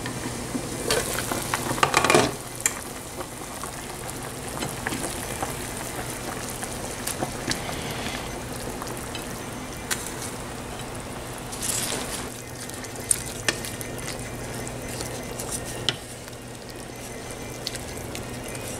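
Pot of sinigang, a tamarind-broth soup with milkfish, bubbling at the boil, a steady hiss. Okra and water spinach are being stirred into it, with louder stirring spells about a second in and again near twelve seconds, and a few light clicks of a utensil against the pot.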